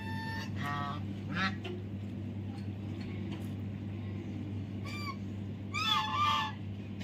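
Domestic geese honking as they crowd the water's edge to be fed by hand, in short bouts: a few calls in the first second and a half, another about five seconds in, and the loudest pair of honks around six seconds in. A steady low hum runs underneath.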